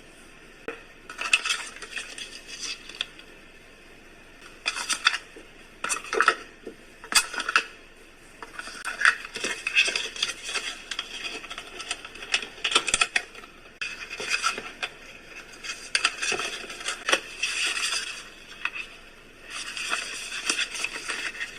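Small objects and packaging being handled on a table: irregular clicks, clinks and rustles, in short bursts throughout.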